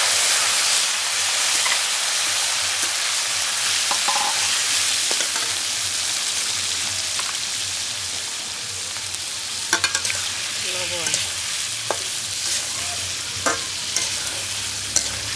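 Tomato wedges tipped into hot oil in a wok set off loud sizzling, which settles into steady frying. A metal spatula stirs and scrapes the pan, clicking a few times in the second half.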